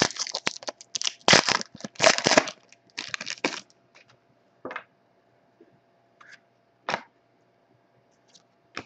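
Foil trading-card pack wrapper torn open and crinkling for the first few seconds, followed by a few light clicks and taps of cards being handled.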